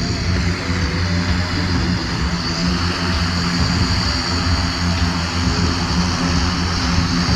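Rotors of a battery-powered manned multicopter prototype running, a steady buzzing hum with a high whine above it.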